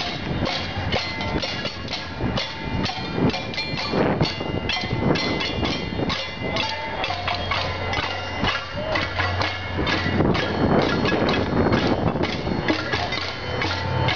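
A crowd banging pots and pans with spoons and other utensils: a dense, continuous clatter of overlapping metal strikes with ringing tones, in no shared rhythm.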